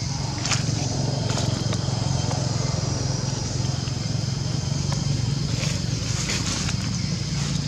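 Steady low outdoor background rumble, with a steady high hiss over it and a few faint scattered clicks.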